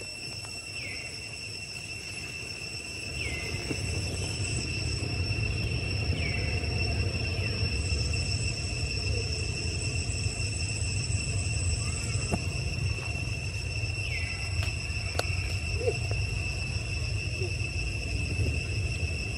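Outdoor insect chorus: several insects droning steadily at high, unchanging pitches. A short falling call repeats every few seconds, and a low rumble grows louder about three seconds in.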